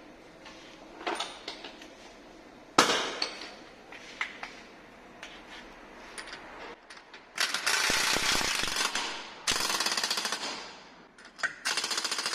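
Impact wrench rattling in three bursts of about a second and a half each, running bolts home as the rear brake drum goes back on, with a single sharp knock a few seconds earlier.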